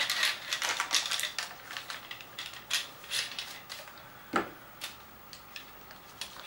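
Quick light clicks and plastic-bag rustling as bagged aluminium boom struts are handled and laid back into a cardboard kit box, with one sharper knock about four seconds in.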